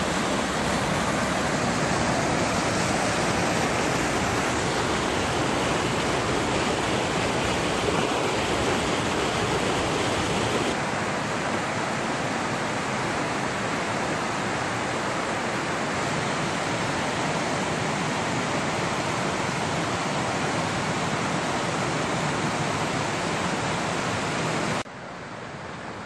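Waterfall and cascading mountain creek, swollen with rain and snowmelt, rushing steadily. It gets slightly quieter about eleven seconds in and drops sharply near the end.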